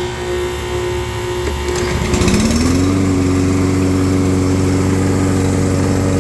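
Toro walk-behind lawn mower's small engine running, presumably after a carburetor rebuild to clear water-contaminated fuel. About two seconds in, its note slides up and then holds at a steady speed.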